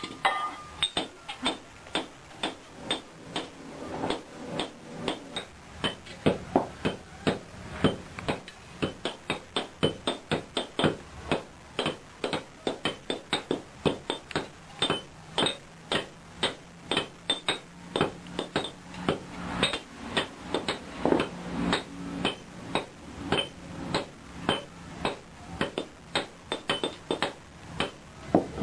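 Blacksmith's hammer striking iron on an anvil in a steady rhythm, about three blows a second, each with a short metallic ring.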